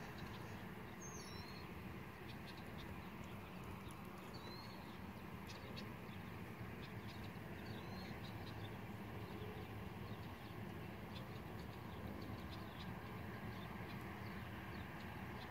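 Low, steady rumble of an approaching CSX freight train's diesel locomotives, growing slightly louder. Birds chirp a few times over it.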